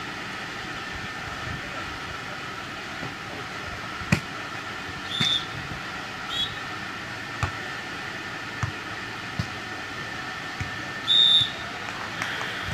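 Referee's whistle: two short blasts about a second apart near the middle, then a longer, louder blast near the end. Behind it is a steady background hum, with a few sharp knocks scattered through.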